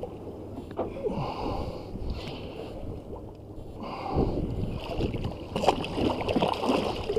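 Water splashing and sloshing against the boat's side as a hooked redfish thrashes at the surface, louder and choppier in the last few seconds.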